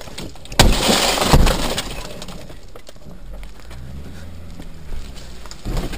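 Sledgehammer blows striking a car windscreen: two loud crashes with crunching, shattering glass, about a second in and again just under a second later. A low steady hum follows.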